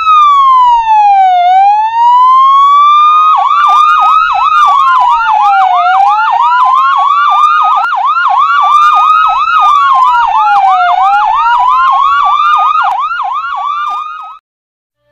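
Electronic siren of a 2019 Toyota Kijang Innova ambulance sounding a slow wail that rises and falls. About three seconds in, a fast yelp of quick rising chirps, about three a second, joins it over the continuing wail. It cuts off suddenly near the end.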